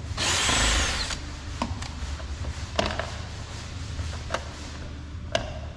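A burst of hissing noise lasting about a second near the start, then a few scattered light clicks and taps of a Phillips screwdriver working at the screw in a plastic car door trim panel, over a steady low hum.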